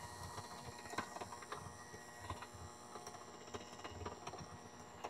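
Electric hand mixer running at low speed, its beaters whirring through milk and instant vanilla pudding in a glass measuring cup, with scattered clicks throughout.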